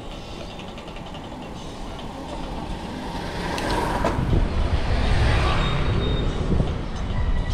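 Motor vehicle noise on a road: a steady rumble that swells from about three seconds in, is loudest a little past the middle, then eases slightly, like a vehicle going by.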